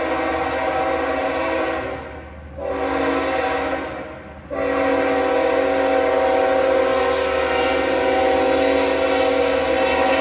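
BNSF diesel freight locomotive's air horn sounding a loud chord of several notes in long blasts, broken by two brief gaps about two and four seconds in, the last blast held on.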